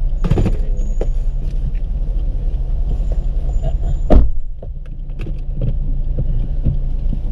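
Steady low hum of an idling car heard from inside the cabin, with small clicks and rustles as a passenger settles into the front seat. One loud thump about four seconds in, after which the background briefly goes quieter.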